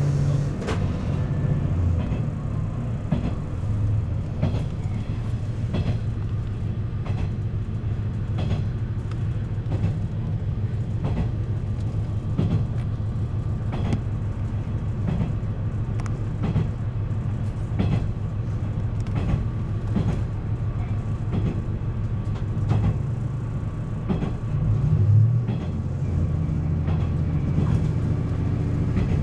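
Tosa Kuroshio Railway 9640 series diesel railcar under way, heard from the driver's cab: a steady low diesel engine note with the wheels clicking over the rail joints. The engine note changes about 25 seconds in.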